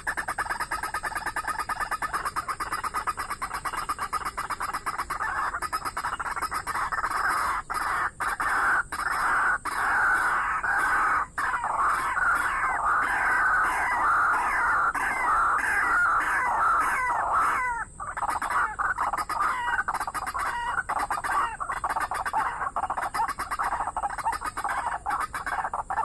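Rapid, repeated clucking calls of a rail, the waterhen-type bird that hanging snares are set for, loudest in the middle and breaking off briefly about two-thirds of the way in. A steady high hiss runs underneath.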